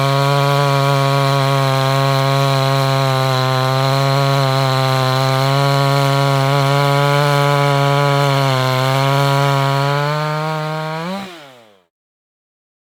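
Small two-stroke gas chainsaw running at high speed, fitted with a square-filed .325 pitch chain for a timed cut in wood. The engine note dips slightly now and then, then drops in pitch and cuts off abruptly near the end.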